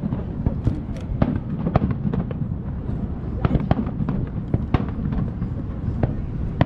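Aerial fireworks going off in quick, irregular succession, with many sharp bangs a second over a continuous low rumble.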